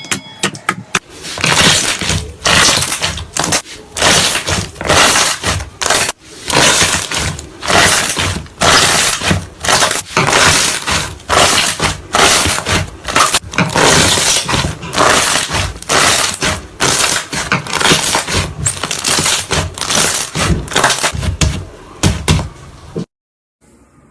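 Slime being squeezed and worked by hand, making dense, loud crackling and popping that stops suddenly near the end.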